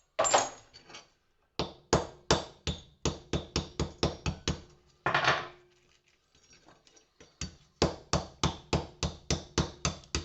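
A hammer striking porcelain lamp holders on a workbench, smashing them to free the brass: quick repeated blows at about three a second. There is a longer, noisier crash near the start and another about halfway through.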